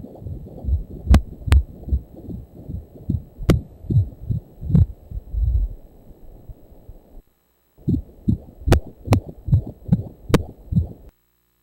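Fetal heartbeat through an ultrasound Doppler: rapid, rhythmic whooshing pulses with a few sharp clicks. It breaks off briefly about seven seconds in and stops shortly before the end.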